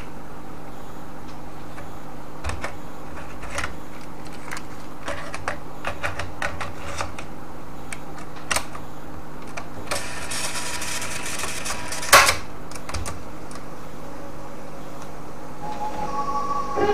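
Cassette deck transport worked by its piano-key buttons: a string of sharp mechanical clicks over a steady motor and mains hum, with a hissing rush of about two seconds some ten seconds in. Near the end the tape starts playing back guitar music.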